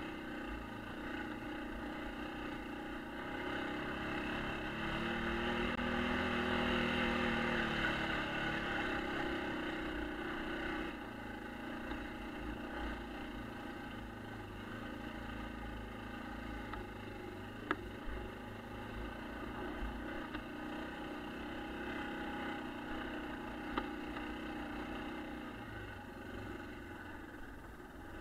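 1996 Yamaha Kodiak ATV's single-cylinder four-stroke engine running under way, revving up and easing back down about five to eight seconds in. Two sharp knocks come near the two-thirds mark and again a few seconds later.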